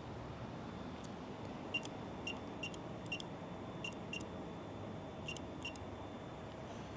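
Short, sharp beeps from a gate access keypad as a code is punched in, about eight presses at uneven intervals, over a low steady hum.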